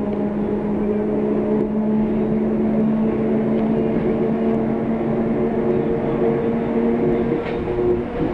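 SuperVia 400-series electric multiple unit droning loudly, a steady hum of several held tones. The lowest tone drops out about seven seconds in.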